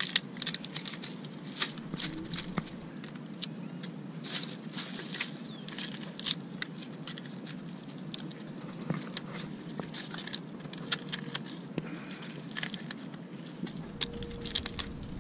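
White plastic bag crinkling and Dungeness crab shells clicking as gloved hands handle and pull at the crabs inside it: a run of irregular small clicks and crackles over a steady background rush.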